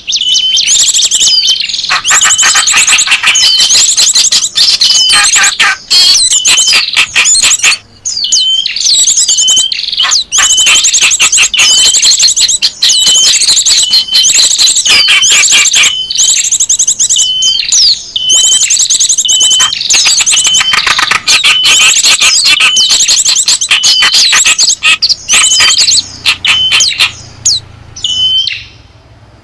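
Bird-lure call recording of small songbirds: dense, continuous high chirping and rapid trills, with a short hooked call note repeating about once a second. The sound thins out briefly near the end.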